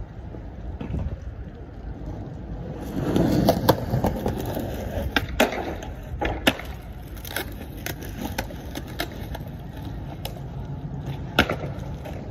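Skateboard wheels rolling in, then the board working along a metal-topped ledge with a string of sharp, uneven clacks from the trucks and deck.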